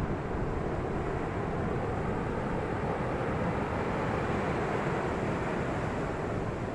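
Ocean surf washing on the shore: a steady rushing noise with a deep low rumble, swelling a little about halfway through.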